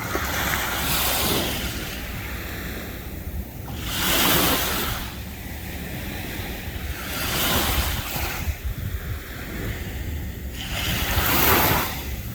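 Small sea waves breaking and washing up the sand, a surge of hiss about every three to four seconds, with a steady low rumble of wind on the microphone.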